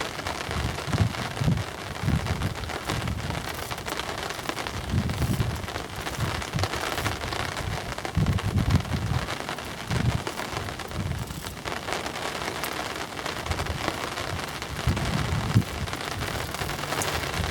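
Steady hissing water noise, with irregular low rumbles coming and going.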